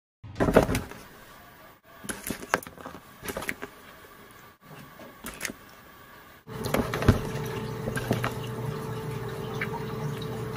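An African bullfrog feeding on mice in a plastic tub: a loud knock just after the start, then scattered knocks and clicks. After about six and a half seconds a steady low hum runs under occasional clicks.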